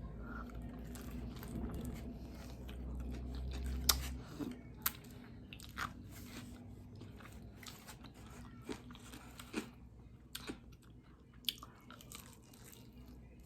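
Close-up eating sounds of biting and chewing crispy fried chicken wings: sharp crunches at irregular intervals, with softer chewing between them.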